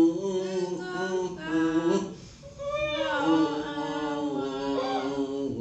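Three people gargling water while singing a tune through it, gurgling pitched voices that rise and fall.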